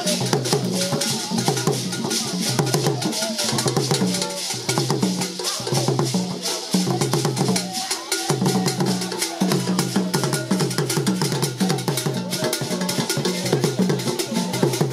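Traditional drumming with rattles: a busy, steady rhythm of pitched drum tones under dense clicking percussion.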